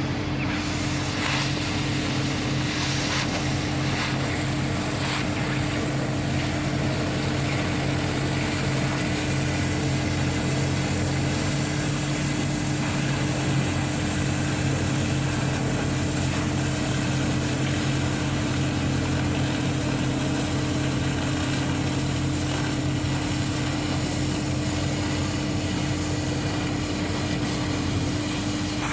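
A steady machine hum with a constant low drone and an even hiss over it, unchanging throughout.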